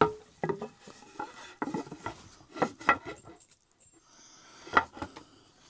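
Wooden crib parts and metal screws being handled and fitted together: a string of sharp knocks and clicks, the loudest at the start and again about five seconds in.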